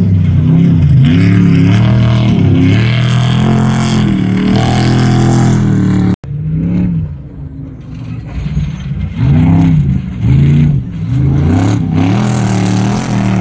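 Off-road desert race trucks passing at speed, their engines revving hard with the pitch swinging up and down as the throttle and gears change. About six seconds in the sound cuts off sharply, then another truck's engine comes in quieter and swells loud again twice.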